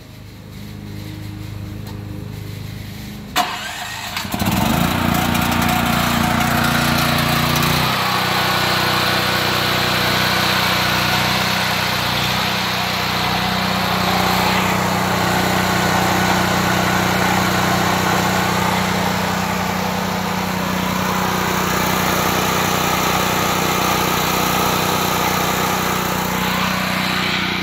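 Predator 7000/8750-watt portable generator's single-cylinder engine starting by remote: a sharp click about three seconds in, then the engine catches about a second later and runs steadily and loud, its note shifting once a few seconds after it catches.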